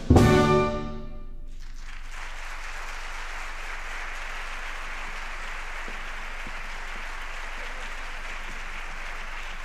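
A symphonic band of winds and strings ends a march on a loud final chord that rings briefly and dies away. About a second and a half in, the audience breaks into steady applause that carries on.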